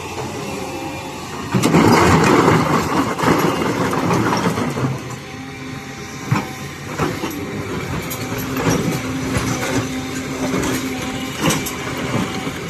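Hydraulic excavator running while it handles rocks. A loud grinding clatter of stone starts about a second and a half in and lasts a few seconds, followed by a few sharp knocks of rock against steel.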